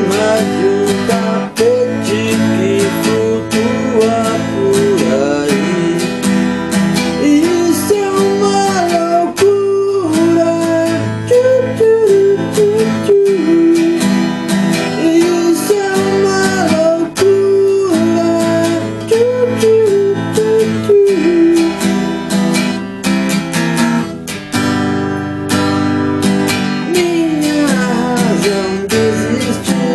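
Strummed acoustic guitar accompanying a sung melody.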